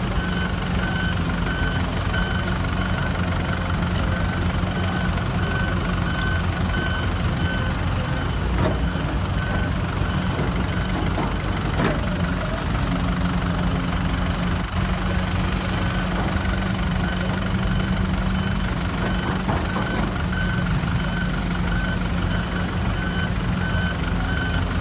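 Heavy diesel construction machinery running steadily, with a reversing alarm beeping at the start and again near the end, and a couple of short knocks around the middle.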